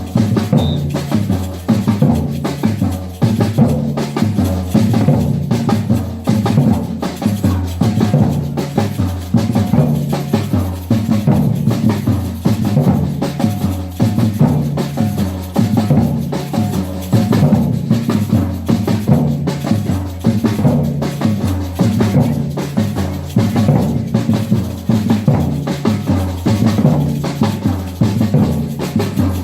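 Batucada percussion ensemble playing a steady samba groove without a break: deep bass drums carry the loudest part of the beat, with snare and higher drums played over them.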